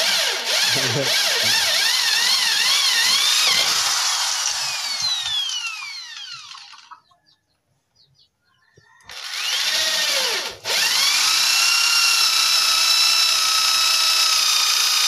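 Corded electric drill boring into a wooden plank: the motor whines and its pitch wavers as the bit bites, then winds down with a falling pitch and stops. After about two seconds of quiet it starts again, rises to speed and runs steadily.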